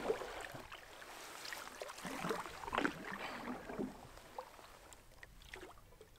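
Canoe paddling: a wooden paddle dipping and pulling through the water in irregular swishing strokes, with drips and a few light knocks, growing quieter after about four seconds.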